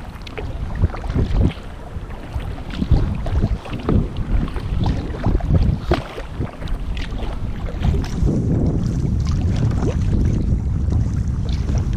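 Kayak paddle strokes dipping and splashing in choppy lake water, irregular, over low wind rumble on the microphone. About two-thirds through, the splashes thin out and the wind rumble turns steady.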